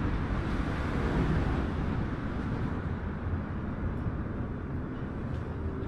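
Freight train rolling past, a steady rumble of wheels on the rails that eases slightly after a couple of seconds.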